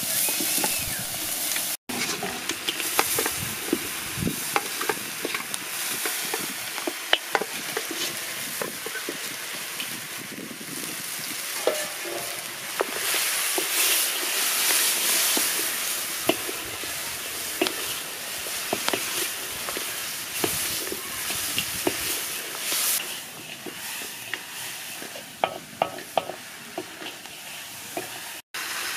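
Meat on the bone sizzling as it fries in a large metal wok, with a wooden spoon scraping and knocking against the pan as it is stirred.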